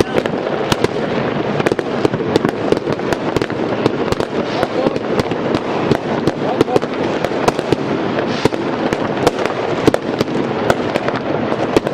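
Citywide New Year's fireworks and firecrackers: a continuous din of bangs, pops and crackling from many directions at once, with sharp individual reports standing out over the steady rumble.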